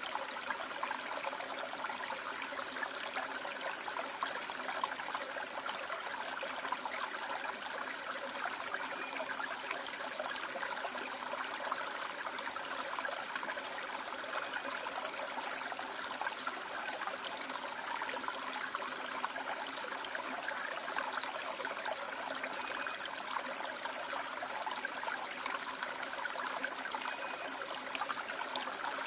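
Valley stream water running steadily over a rocky bed, an even rushing sound with no lull.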